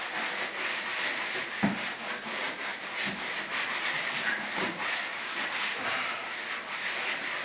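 A damp cloth rag rubbing over the sanded surface of a fiberglass door in quick, repeated wiping strokes as a liquid surface-preparation cleaner is applied. There is a single knock about a second and a half in.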